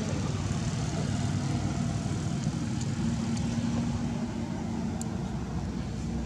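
Steady low rumble of an engine running, with a faint even hum holding through the middle.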